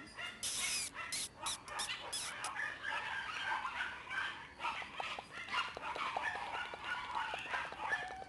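Shiba Inu puppies yipping and whimpering in short, choppy calls, after a few brief noisy bursts in the first couple of seconds.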